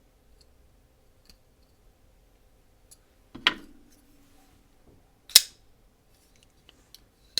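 Folding pocketknife blades being flicked open and snapping shut: two sharp metallic snaps about two seconds apart, the first about halfway in with a short ring after it and the second louder, then a small click at the very end.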